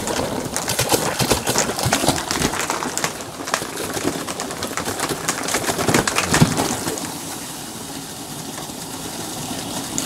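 Air-only pulses from a pipe-cleaning machine's punch function forcing water out of a heating-pipe loop, spurting and gurgling from the outlet hose into a floor drain in rapid irregular pops. The sputtering is loudest for about seven seconds, then settles to a quieter, even flow as the pipe empties of water.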